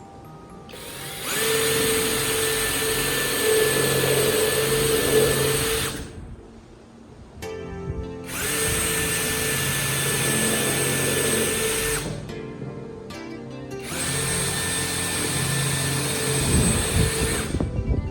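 Homemade wood router's motor running at high speed in three runs of a few seconds each, with a steady whine at a fixed pitch that starts and stops abruptly each time. Background music plays underneath.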